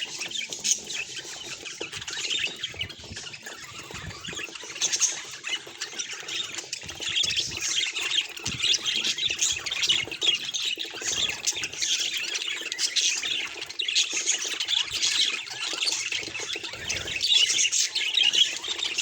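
Several budgerigars chattering and chirping continuously, a busy warble of quick, varied high notes.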